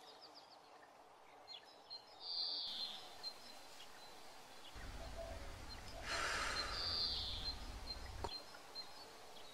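Quiet rural outdoor ambience with two short bird calls, one a couple of seconds in and one near the end. A brief hissing noise and a low rumble come in around the middle.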